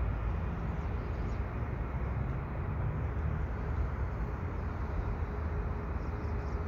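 Steady low rumble of outdoor city background noise, with no distinct events.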